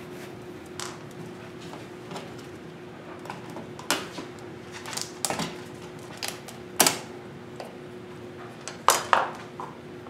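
Flathead screwdriver backing the screw out of a plastic wall-outlet cover plate, then the plate coming off the wall: irregular small clicks and scrapes of metal on plastic, with a few sharper clacks near the end.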